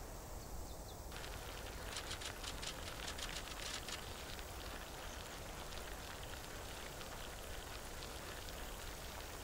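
Road bicycle rolling on asphalt: a faint steady hiss, with a run of rapid light ticks from about two to four seconds in.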